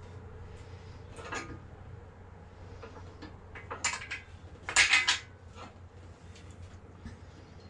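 Metal clinks and clanks from a red engine stand as a bare 5.3 L LS V8 block is rotated on it. A few sharp clicks come about a second in, and the loudest cluster of clanks comes about five seconds in.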